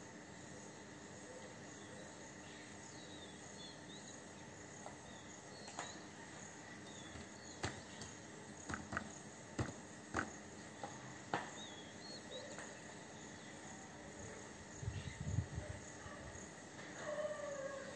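Faint background sound with small high chirps, a run of sharp clicks and knocks in the middle, and a low thumping a few seconds before the end.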